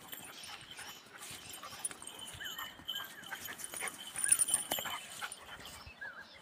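Bhotia dogs giving short, high squeaky whimpers again and again as they play, with rustling and knocks that are loudest a little past the middle.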